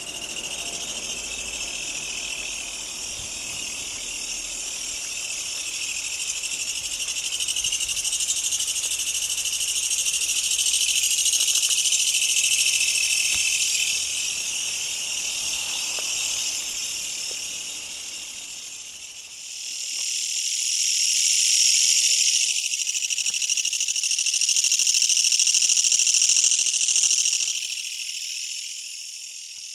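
Loud, continuous buzzing call of a large katydid, which the recordist takes for a kutsuwamushi (Mecopoda niponensis, the Japanese 'gacha-gacha' katydid). It swells louder about two-thirds of the way in and fades toward the end.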